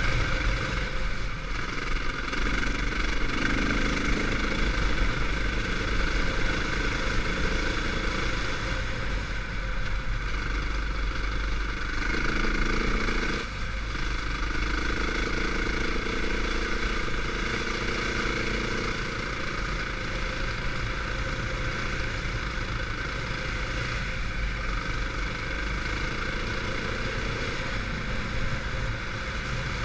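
KTM 450 dirt bike's single-cylinder four-stroke engine running under way, its pitch rising and falling as the throttle opens and closes, with a brief dip about thirteen seconds in.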